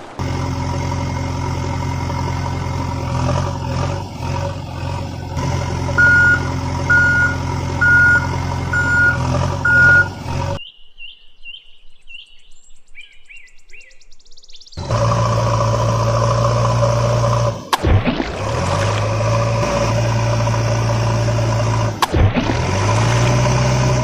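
A heavy vehicle engine running steadily, with a reversing alarm beeping five times about once a second. About 11 seconds in the engine stops for a few seconds, leaving only faint chirping. It then starts again, with a few sharp clicks.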